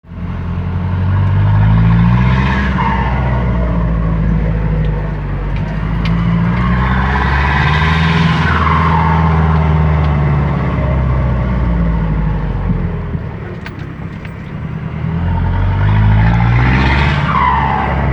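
Ford F-250 pickup's engine running hard and revving up three times, with a high whine that rises with each rev and slides down as it eases off.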